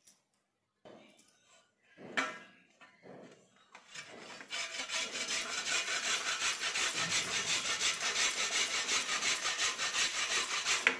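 Guava being grated on a stainless-steel grater over a steel plate: quick, even rasping strokes that start about four and a half seconds in, after a metallic clatter about two seconds in.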